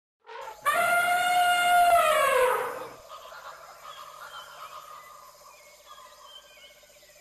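Elephant trumpeting: one loud call of about two seconds, held at a steady pitch and then sliding down at the end. A much quieter background with faint chirps follows.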